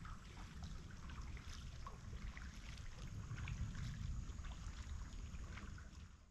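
Faint river ambience: water lapping and trickling close by, with small scattered ticks over a low steady rumble. It fades out near the end.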